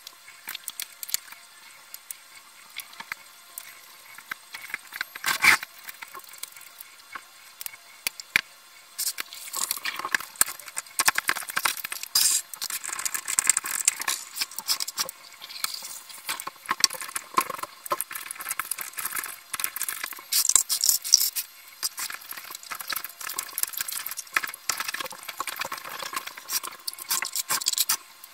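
Clicks and rattles of a large plastic water bottle being handled and hung on a cord, with one louder knock about five seconds in. From about nine seconds in there is a denser run of splashing and rustling as things are rinsed under water from the hanging bottle.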